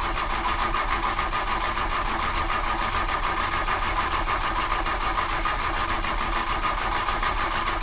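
Car engine being cranked by its starter motor in a fast, even rhythm without catching: the engine will not start.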